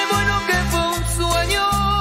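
Instrumental break of a Latin cumbia song: a bass line stepping through held notes under a sustained melody, with steady percussion and no singing.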